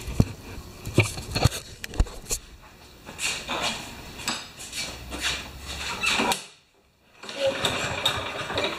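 Several sharp clicks and knocks, then rustling and clattering handling noises with a brief break; no engine is running.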